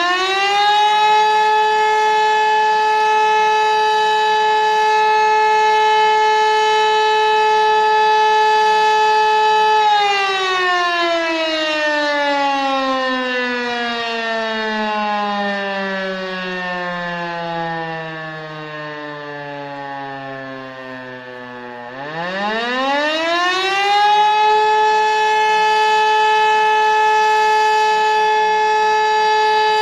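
E57 electromechanical siren sounding the German fire alarm signal (Feueralarm). It holds a steady, loud wail for about ten seconds, then winds down with slowly falling pitch for about twelve seconds as the rotor coasts. It then spins back up to full pitch and holds steady again. This interrupted-tone pattern is the signal that alerts the volunteer fire brigade.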